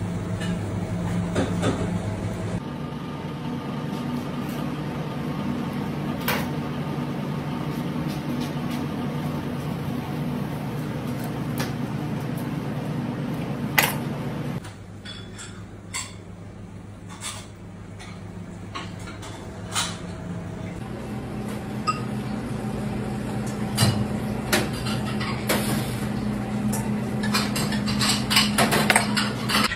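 Kitchen prep sounds: a steady low hum under scattered clinks and knocks of utensils and skewers on a plastic cutting board. A quicker run of knife taps on the board comes near the end.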